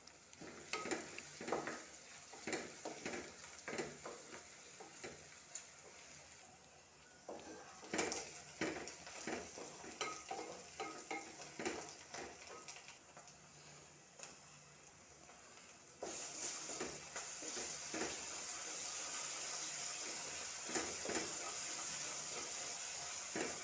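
Wooden spatula scraping and knocking against an aluminium pan while onions, chillies and okra are stirred, with frying sizzle underneath. The strokes come in quick bunches for the first dozen seconds. From about 16 seconds in, a steady sizzle takes over.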